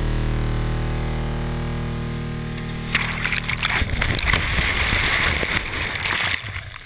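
A held note of an electronic soundtrack fades out over the first three seconds. Then a sudden rush of churning, bubbling whitewater from a kayak plunging under at the foot of a waterfall, recorded on a helmet camera, runs for about three seconds and cuts off.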